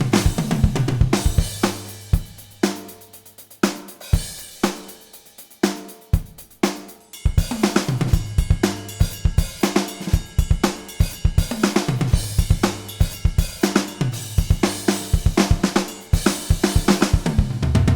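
Sampled drum kit from the Groove Agent 5 virtual drum instrument playing a programmed groove with kick, snare, hi-hat and cymbals. The beat thins to a sparse, quieter fill about two seconds in, and the full pattern comes back about seven seconds in.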